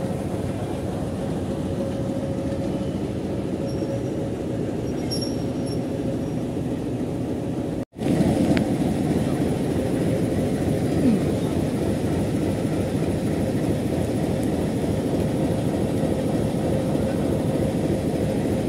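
Bangladesh Railway diesel locomotive's engine running with a steady drone and a held tone. It is louder after a brief break about eight seconds in.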